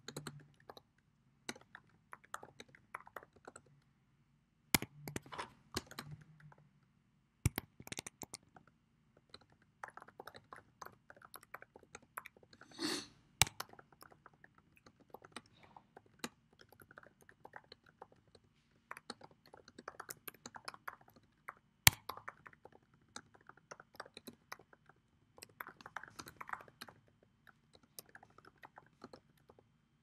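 Typing on a computer keyboard: irregular runs of key clicks as a sentence is typed, with a few harder single strokes standing out.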